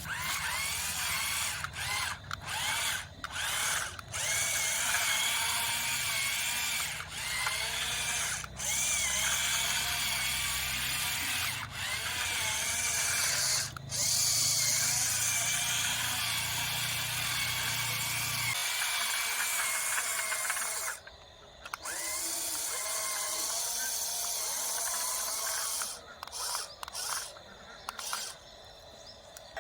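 Small electric motors and gearboxes of a remote-control construction model whining, the pitch rising and falling as the machine works, with short stops between movements. A low hum underneath cuts off about two-thirds of the way through.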